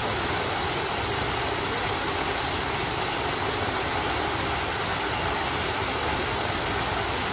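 Steady, even rush of running water with no separate splashes.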